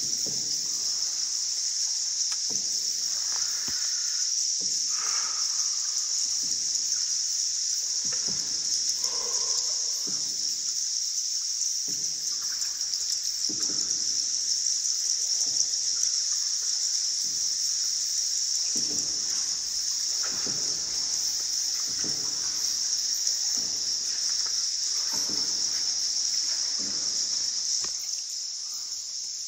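Water sounds in the underground river: a steady high hiss with soft splashes every second or two. The hiss eases near the end.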